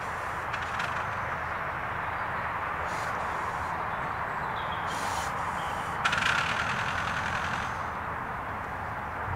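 Miniature 7¼-inch gauge steam locomotive hauling a passenger train, a steady hiss and running noise, with a louder burst of hiss about six seconds in.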